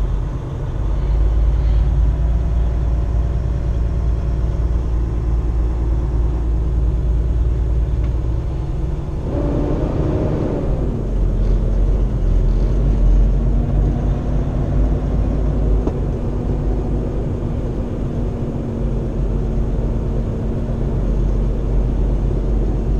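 Engine and road noise of a Kenworth T680 semi-truck heard inside its cab while driving slowly in traffic: a steady low rumble. About ten seconds in, an engine note comes in, falls in pitch and then holds as a steady hum.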